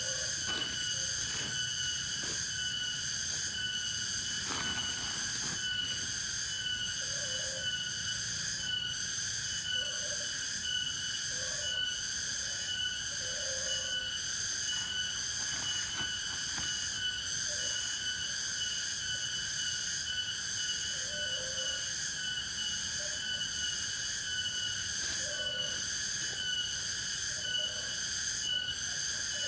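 Steady, shrill chorus of forest insects such as cicadas or crickets, pulsing quickly, with short lower-pitched notes breaking in every second or two.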